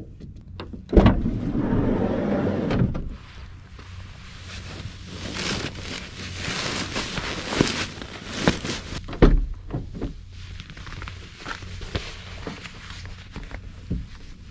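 Handling noise inside a kei van: a door thunks about a second in, then rustling and a run of knocks and clicks as insulated window covers are handled and pressed into place, with another heavy thunk about nine seconds in.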